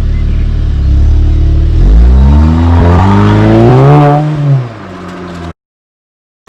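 Audi S3's turbocharged four-cylinder engine, breathing through a Remus exhaust, idling and then revved once: the pitch climbs for about two seconds and drops back. The sound cuts off abruptly about five and a half seconds in.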